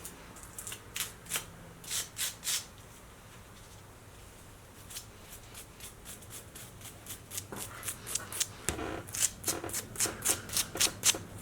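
Hand work on a metal brake hard line: a few short scrapes, then a steady run of short scraping, rubbing strokes, about two or three a second, growing louder over the last few seconds.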